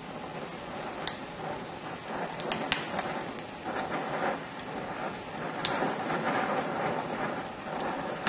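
DHC2000 oxy-acetylene torch flame hissing steadily while gas welding chromoly tubing with filler rod, with scattered sharp pops and crackles as sparks fly from the weld.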